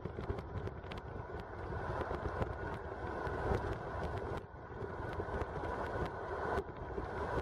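Road noise from a moving car: a steady low rumble with wind on the microphone and many small scattered clicks.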